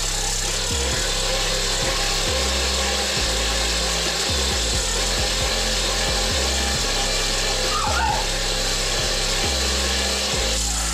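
Chinese-made hand-crank forge blower being cranked: the fan whirs with a steady rush of air out of its outlet pipe, over a low hum that rises and falls with the turning of the crank.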